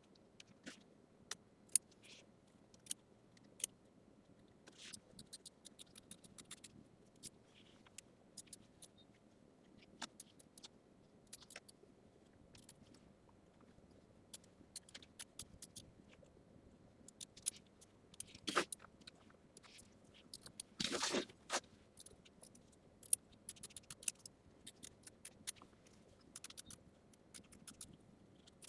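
Scissors snipping applique fabric close to the stitching in an embroidery hoop: faint, irregular small snips and clicks, with two louder scraping rustles of fabric around eighteen and twenty-one seconds in.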